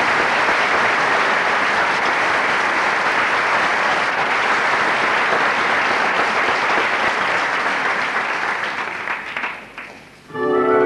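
Theatre audience applauding steadily, the clapping dying away near the end. Just before the end the orchestra starts playing again.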